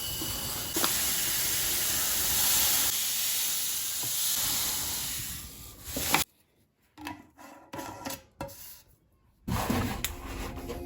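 A steady hissing rush, like something fine and grainy pouring or rustling, for about five seconds and fading away. Then a few faint soft knocks in near silence, and rustling starts again near the end.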